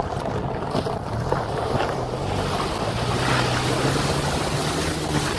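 A vehicle's engine running steadily as it drives through a shallow river ford, with water rushing and splashing around it. The engine hum fades out near the end.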